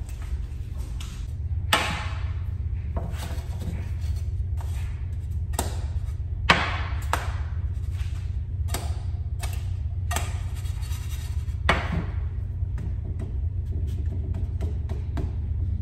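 Cooking sounds at a stovetop: scattered light taps and clinks of a utensil against a frying pan and batter bowl over a steady low hum. Three sharper knocks stand out, about two, six and a half and twelve seconds in.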